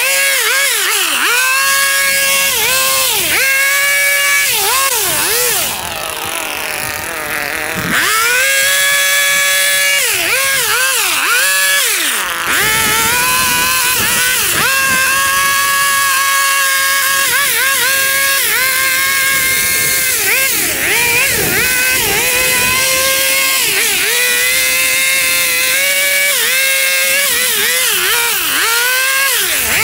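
Gas small-engine mowing equipment running hard in overgrown grass. Its pitch dips and recovers again and again as the engine is loaded by the thick growth. About six seconds in it drops quieter for a couple of seconds.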